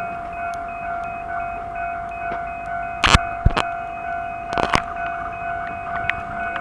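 Level-crossing warning alarm ringing steadily in a fast repeating pattern. A few sharp, loud clanks come about three seconds in and again a second and a half later.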